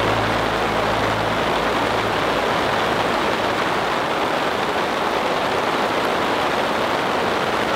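Heavy rain falling steadily, an even rushing noise with no breaks.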